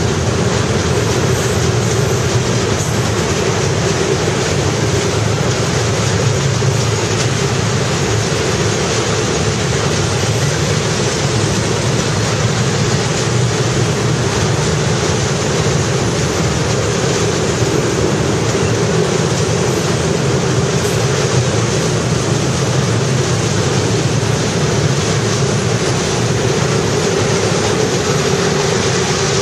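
Freight train of tank wagons rolling past at close range: a loud, steady noise of steel wheels running on the rails.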